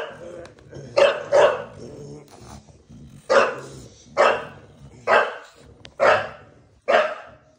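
English bulldog play-barking while tugging on a sock: seven short barks, two in quick succession about a second in, then after a pause about one a second, with low growling between them.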